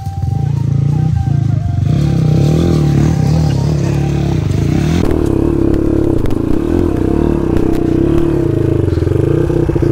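Dirt bike engine running under load on a rough trail, its pitch rising and falling with the throttle.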